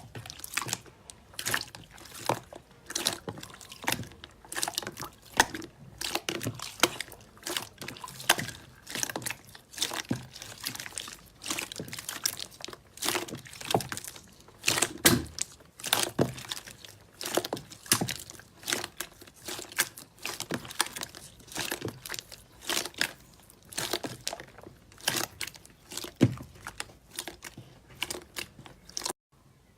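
Slime being squeezed and worked by hand: an irregular run of sharp wet pops and clicks, a few a second, stopping abruptly near the end.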